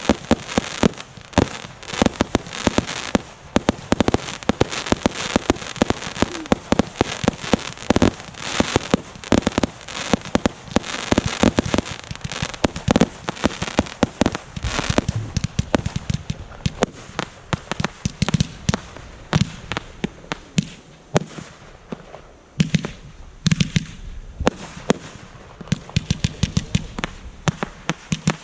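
Fireworks display: a dense barrage of sharp bangs and crackling, several reports a second with heavier low thumps among them, thinning out somewhat in the last third.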